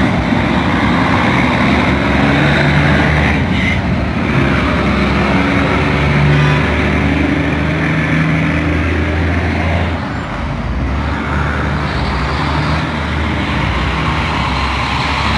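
Truck and car traffic at a highway toll plaza: heavy engines running close by with a steady low rumble over road noise, easing off slightly about ten seconds in.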